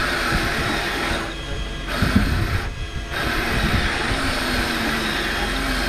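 Fishing boat's engine running steadily, a continuous rumble with hiss from wind and sea over it.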